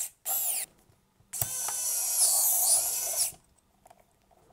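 Electric precision screwdriver driving a small screw into a camera's metal top plate. It whines in a short burst near the start, then runs for about two seconds with its pitch wavering, and stops.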